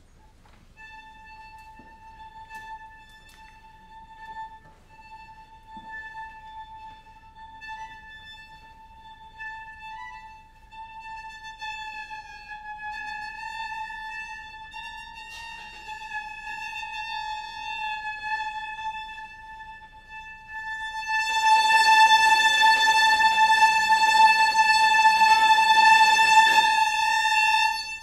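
String quartet playing contemporary music: a single long high note held almost unchanged on the strings, bowed steadily. Near the end a much louder, noisy bowed layer joins over the held note for about five seconds, then drops away.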